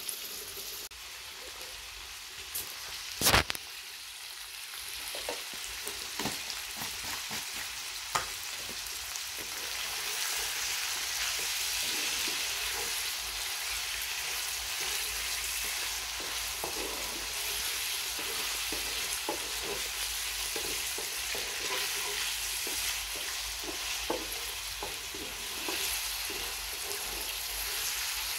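Goat liver pieces sizzling in a frying pan, the sizzle growing louder about ten seconds in. A wooden spoon knocks and scrapes against the pan as the liver is stirred, with one sharp knock about three seconds in.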